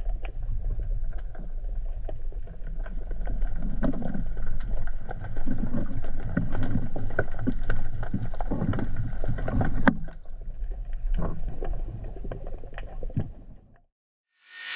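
Muffled underwater ambience picked up by a diver's camera: a steady low rumble of moving water with scattered small clicks and knocks. It fades out about a second before the end.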